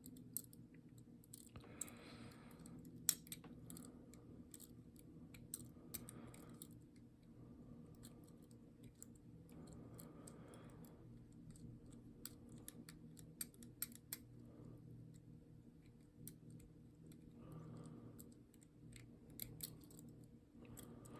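Faint, irregular small metallic clicks and light scraping from a pick wire and tension tool working the levers inside a five-lever ERA padlock.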